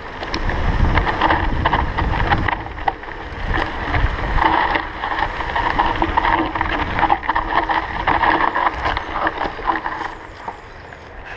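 Canyon Grand Canyon CF SL 8.9 mountain bike riding down a dirt and gravel singletrack, heard from an on-board action camera: a steady rush of wind and tyre noise with many small clicks and rattles from the bike over the rough ground. The noise gets quieter near the end.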